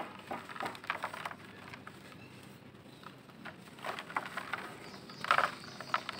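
Dry grey dirt lumps crumbled by hand in a plastic bucket, crackling and pattering as they break and the crumbs fall. The crackles come in irregular bursts, with a lull about two to three seconds in and the loudest burst about five seconds in.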